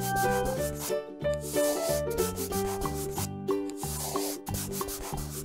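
Scratchy rubbing of a marker colouring on paper, in many short back-and-forth strokes, over a light instrumental children's tune.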